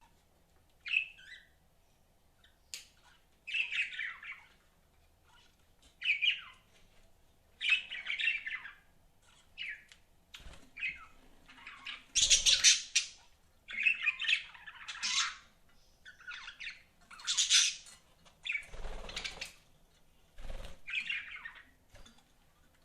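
Budgerigars chirping and squawking in short bouts of high chatter, about a dozen in a row with brief pauses between, with a few low thumps in the second half.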